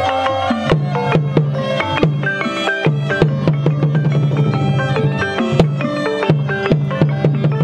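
Khmer pinpeat ensemble playing the accompaniment to sbek thom shadow puppetry: a fast run of struck melodic notes over steady drum beats.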